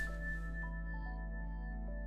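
Background music: slow ambient piece of long held notes, with new notes entering one after another.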